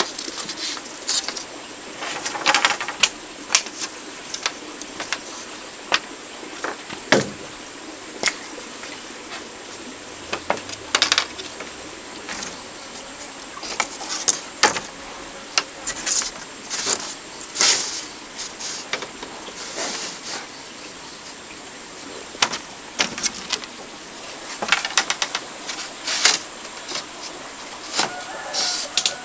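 Bamboo poles and split bamboo slats clacking and knocking together in irregular sharp knocks as they are handled and laid into a lattice. A steady high-pitched tone runs underneath.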